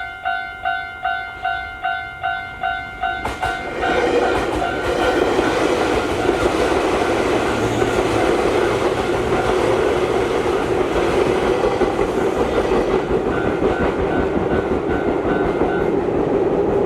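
Japanese level-crossing warning bell dinging a little over twice a second on two tones. About four seconds in, an Izu Kyūkō train passes over the crossing, and the rumble and clatter of its wheels drowns the bell, which stops near the end.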